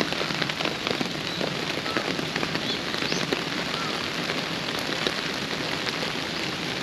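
Steady rain pattering, a dense haze of small drop clicks.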